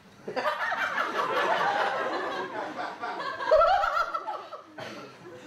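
Live audience laughing: a crowd's mixed laughter that breaks out about half a second in, is loudest a little past halfway, and dies away near the end.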